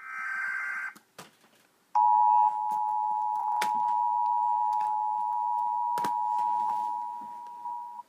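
Emergency Alert System tones played through laptop speakers: a short burst of screechy header data tones, then from about two seconds in the steady two-tone attention signal (853 and 960 Hz sounded together) held for about six seconds. A few sharp clicks come over the tone.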